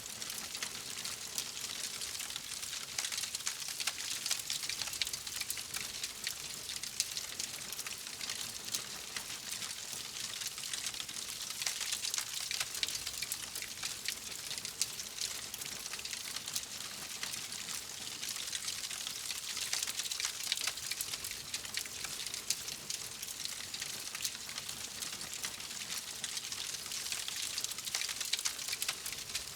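Wood fire crackling in a fireplace: a steady, dense patter of small pops and snaps over a soft hiss.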